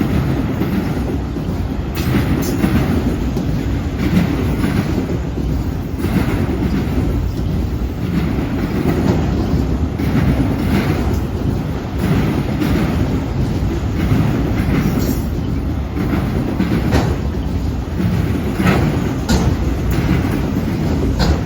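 Freight train cars rolling past with a steady low rumble. Their wheels clack sharply every second or two as the trucks cross the rail joints and junction switch.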